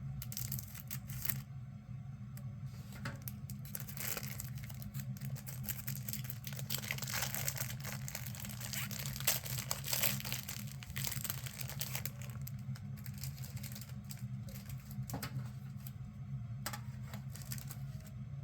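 Crinkling and tearing of a 1989 Topps rack pack wrapper as it is opened by hand: an irregular run of crackles and small clicks over a steady low hum.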